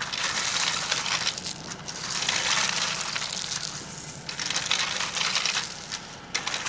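A hand tool scraping and dragging through soil and gravel in repeated strokes, each lasting a second or two.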